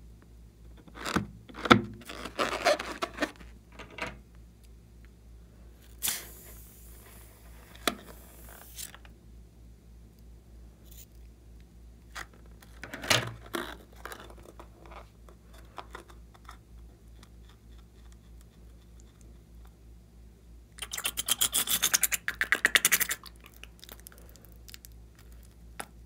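A slime-filled rubber balloon handled and squeezed by hand: rubbery rubbing and scraping noises, with a hiss lasting about three seconds a few seconds in and a two-second run of rapid crackling clicks later on.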